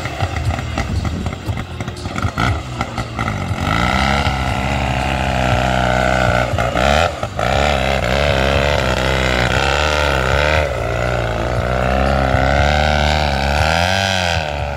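Small tractor's engine running under load as it drives through a muddy water pit, its pitch swinging up and down as the throttle is worked.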